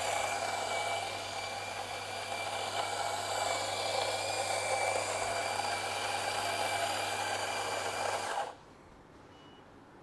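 Small domestic electric burr coffee grinder running on its timed dose, a steady motor whine as it grinds beans into a portafilter, cutting off abruptly about eight and a half seconds in when the timer ends.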